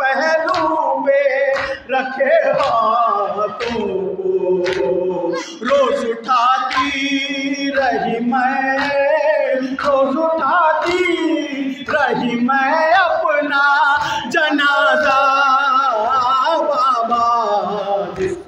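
A man reciting a noha, a Shia Urdu lament, in a sustained, wavering singing voice through a microphone and PA.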